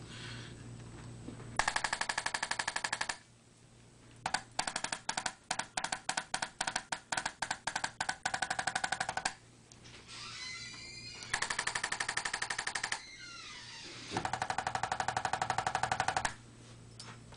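Electric chiropractic adjusting instrument firing rapid trains of percussive thrusts in four bursts, each lasting one to five seconds. The second and longest burst is slower, about four to five taps a second; the others are denser.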